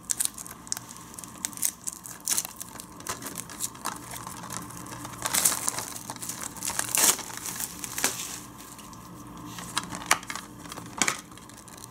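Plastic shrink-wrap being torn and peeled off a Blu-ray case, crinkling and crackling unevenly, loudest about halfway through.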